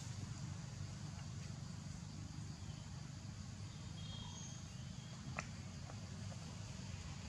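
Forest ambience: a steady low rumble under a faint hiss of insects, with a few brief, faint high chirps about four seconds in and a single soft click a little later.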